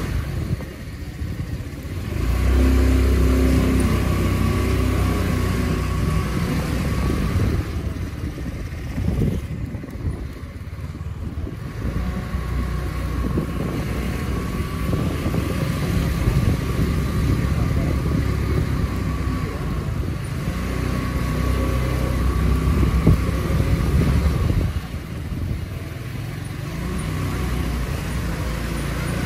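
A motor vehicle engine running with road noise while driving. The engine note rises about two seconds in and eases off and picks up again a couple of times.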